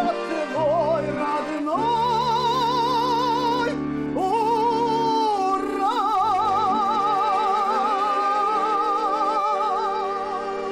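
A singer holding long final notes with wide vibrato over sustained instrumental accompaniment, closing a song: a shorter held note, a slide up, then one long held note.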